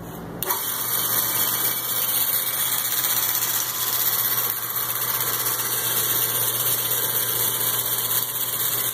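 Homemade 2x48 belt grinder starting up about half a second in, then running steadily: the 1 hp AC motor's steady hum under the whir of the abrasive belt on its V-belt-driven wheels.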